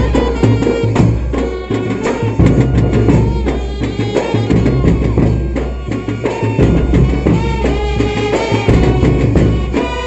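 Tamil sanda melam festival band music: loud, fast drumming with a melody instrument playing over it.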